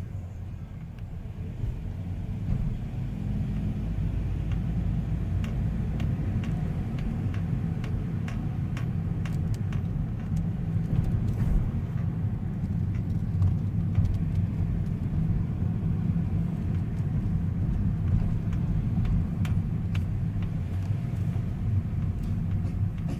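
Car being driven: a steady low rumble of engine and road, with scattered light knocks and clicks at irregular moments. The car has a clunky noise when braking.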